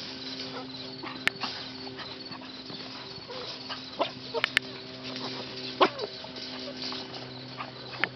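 Rescue puppies giving a few short, sharp yips and barks at irregular moments over a steady low hum.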